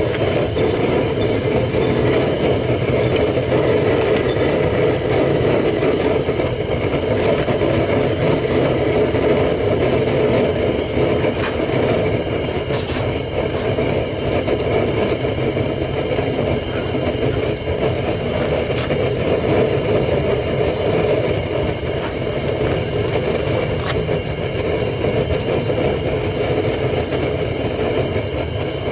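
Propane burner running steadily in a homemade foundry furnace, a continuous even rush with no regulator fitted on the gas line.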